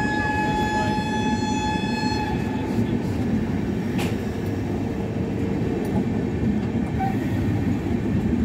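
Express train coaches rolling steadily past along the platform as the train pulls into the station, a continuous rumble. A single horn blast is held for about two seconds at the start, and there is one sharp click about four seconds in.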